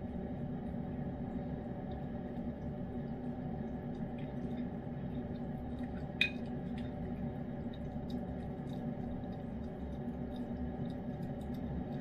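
A cat licks wet food off a spoon, making faint wet ticks. A spoon gives a single ringing clink against the bowl about six seconds in. A steady low hum runs underneath.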